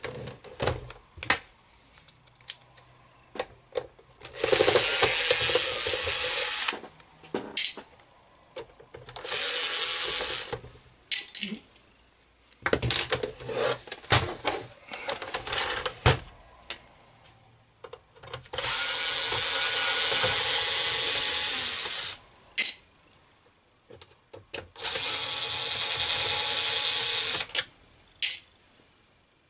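Cordless electric screwdriver running in four runs of a few seconds each, backing out the case screws, with clicks and knocks of the plastic case being handled in between.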